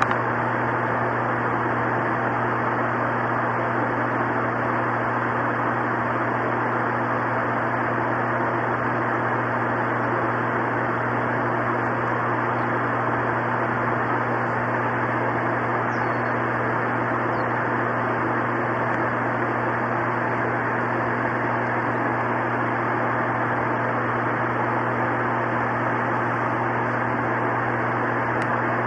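Steady hiss-like noise with a low hum underneath.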